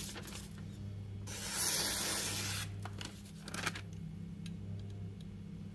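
A Shun Classic utility knife slicing through a sheet of newspaper in one stroke about a second in, a smooth papery hiss lasting about a second and a half. A few light clicks follow, over a low steady hum.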